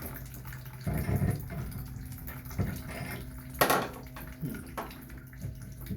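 Hand tools working on a stuck shower valve stem that is breaking apart: scraping and knocks, with one sharp metal clank a little past halfway, over a steady low hum.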